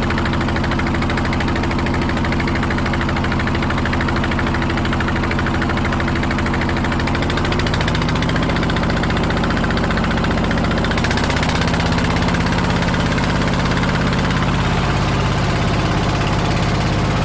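An engine running steadily; its pitch drops a little about seven and a half seconds in. A hiss joins it at about eleven seconds.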